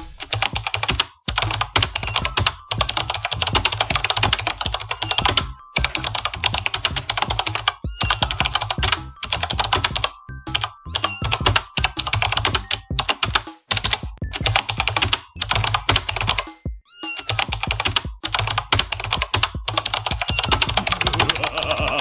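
Keyboard typing sound effect: rapid key clicks in quick runs broken by short pauses, over background music with a steady bass.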